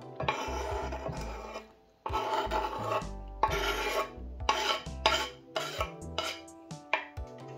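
Food being grated on a hand grater: rasping strokes, the first few long, then shorter and quicker from about halfway through.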